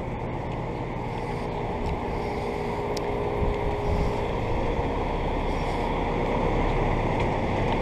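2009 Frigidaire heat pump outdoor units running: a steady rush of condenser fans with a low, even hum.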